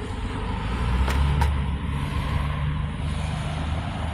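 Road traffic passing through an intersection: steady vehicle and tyre noise, with one vehicle's engine rumble growing louder about a second in and easing off toward the end. Two short clicks come close together a little over a second in.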